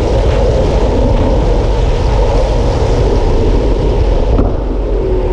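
Wind rushing and buffeting over the microphone of a bike-mounted camera on a fast road-bike descent: a loud, steady, deep rumble. The upper hiss dulls a little about four seconds in.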